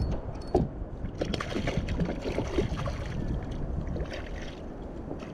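Water lapping around a fishing kayak with wind on the microphone, and scattered small knocks and splashes throughout.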